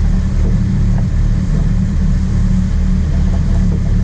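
Sport-fishing charter boat's engine running steadily with a low, even rumble.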